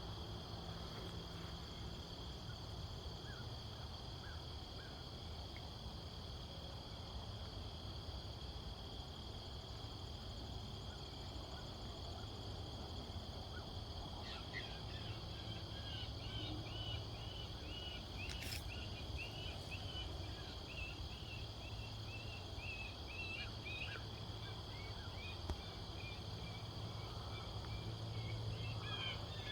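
Steady late-summer insect chorus of crickets trilling on two high, unbroken tones, with a rapid series of short chirps joining from about halfway through and one sharp click a few seconds later.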